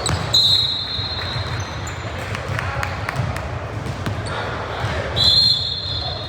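Two referee whistle blasts over gym noise: a short one just after the start and a longer one near the end. Between and under them come scattered voices and a basketball bouncing on the hardwood court.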